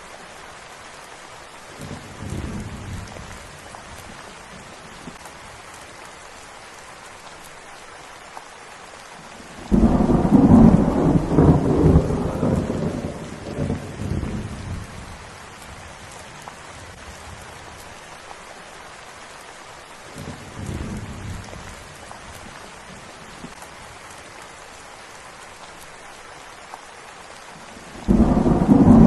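Steady rain falling, with thunder. A faint rumble comes about two seconds in, and a loud peal breaks in suddenly about ten seconds in and rolls on for several seconds. Another faint rumble follows around twenty seconds, and a second loud peal starts near the end.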